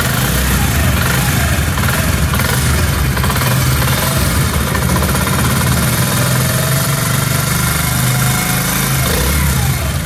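Honda CD 70's 72 cc single-cylinder four-stroke engine idling steadily.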